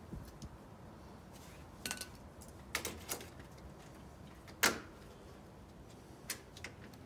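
Scattered light clicks and knocks of metal as the aluminum frame of a sliding glass door panel and small parts are handled at its corner, about six in all, the loudest a sharp knock about two-thirds through.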